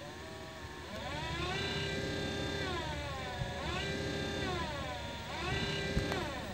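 Car windshield wiper motor turning a 3D-printed PLA wheel: a whine that glides up and down in pitch about every two seconds, over a low rumble.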